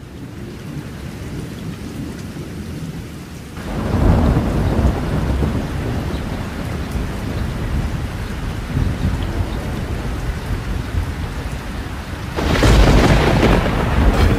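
Steady rain falling in a thunderstorm, fading in at the start, with two rolls of thunder: one about four seconds in and another near the end.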